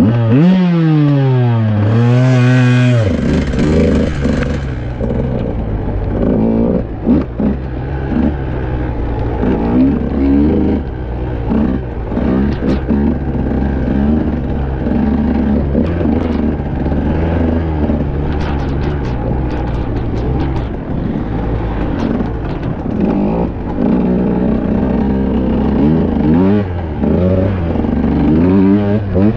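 Enduro dirt bike engine heard from the rider's position, revving up and dropping back again and again as the bike accelerates, shifts and slows along the trail. About a second in, the note falls steeply, then climbs again before settling into the repeated rise and fall.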